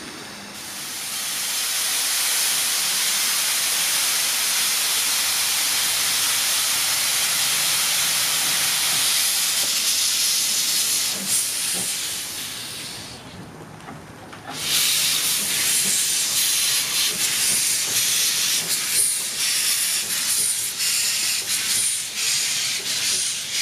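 Narrow-gauge steam locomotive blowing off a loud, steady hiss of steam, with steam billowing from its cylinder drain cocks. About halfway through the hiss dips briefly, then returns as an uneven, pulsing hiss as the engine pulls away.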